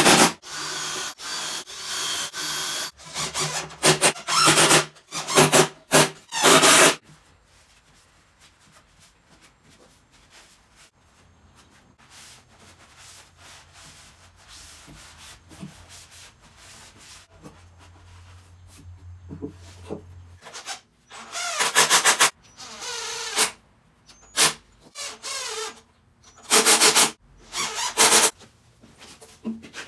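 Cordless drill running in short, loud bursts while it bores pocket holes into a clamped pine frame. Then a cloth rubs quietly over the wood for about fourteen seconds. The drill comes back in short bursts near the end.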